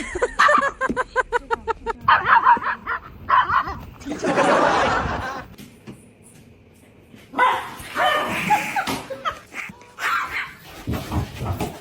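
Small dog barking and yapping in quick bursts, with a person laughing.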